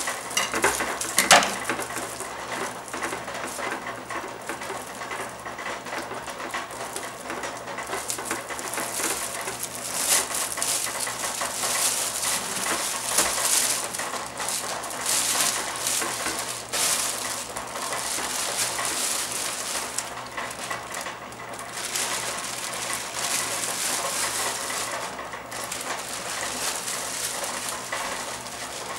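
Plastic bag of frozen haskap berries crinkling as it is snipped open with scissors and handled, with a sharp click about a second in. Frozen berries then tumble out of the bag into a stainless steel stockpot, a dense crackling and clattering.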